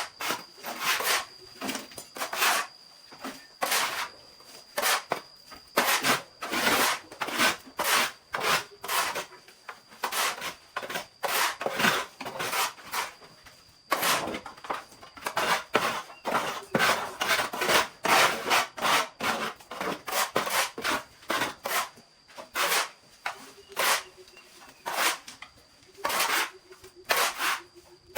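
Hand saw cutting through wood in a long run of back-and-forth strokes, one or two a second, with a few short pauses.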